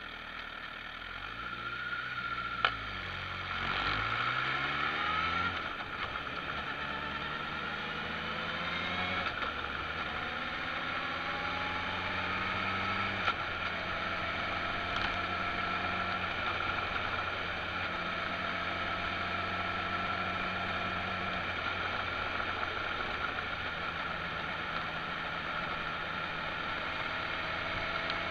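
Motorcycle engine pulling away and accelerating up through the gears: the pitch climbs, then drops back at each gear change, before settling into a steady cruise. There is a sharp click about a third of the way in and another near the middle.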